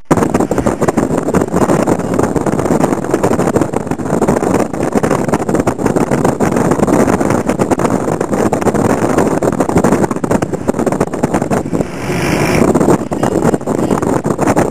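Steady engine and road noise of a car driving along, heard from inside the moving vehicle. A brief higher-pitched sound comes near the end.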